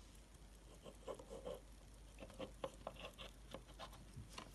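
Faint, irregular small taps and rubbing from hands handling a chrome-cased pocket watch.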